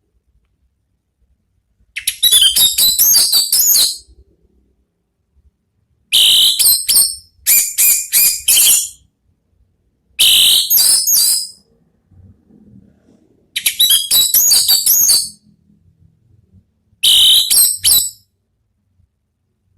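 Orange-headed thrush (anis merah) singing its loud, open 'ngeplong' song: five quick phrases of rapid, high whistled notes, each lasting a second and a half to two seconds, with pauses of about two seconds between them.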